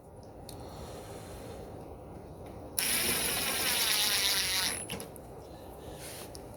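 A sharp hiss of pressurised gas, starting abruptly about three seconds in and lasting about two seconds, over faint handling noise.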